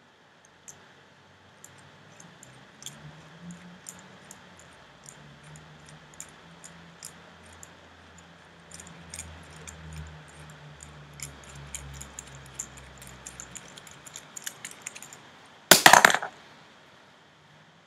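Faint, irregular small clicks and taps of a small plastic dome toy being fingered and turned in the hand, over a low hum. About 16 seconds in, a loud, brief rustling knock as a hand brushes against the camera's microphone.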